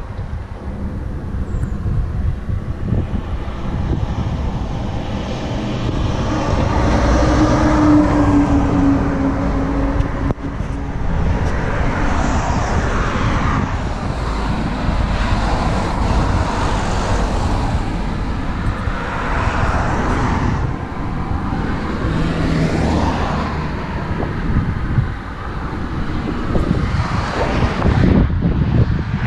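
Lotus Esprit Turbo's turbocharged four-cylinder engine running with a steady low rumble, its pitch rising and falling several times.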